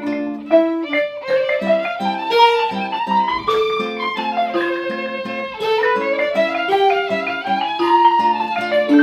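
Instrumental string music: a bowed, violin-like melody that climbs and falls in smooth phrases over plucked string notes.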